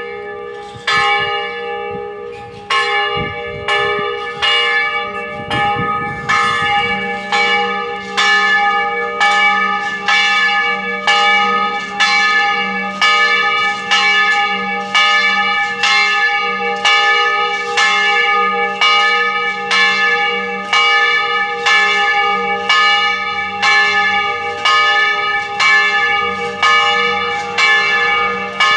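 Large cast church bell tolling, each stroke ringing on into the next. The strokes start slow and quicken to a steady pace of a little over one a second.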